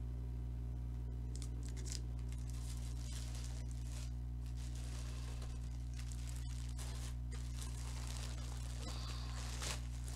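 A plastic mailer bag rustled, crinkled and torn open by hand, in short faint bursts, over a steady low electrical hum.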